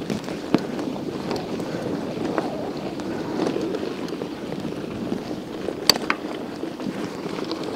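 Wind buffeting the microphone over the rolling noise of a 1991 Scott Montana mountain bike being ridden. There are a few sharp clicks, one about half a second in and two close together about six seconds in.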